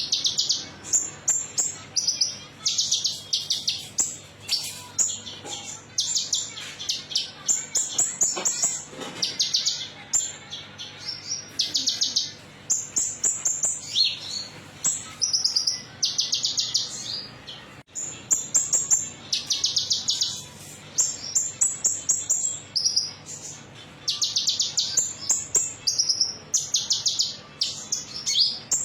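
Konin songbird singing a 'metalik' song: short, rapid high-pitched trills repeated every second or two. It is a lure song of the kind played to caged birds to prompt them to sing.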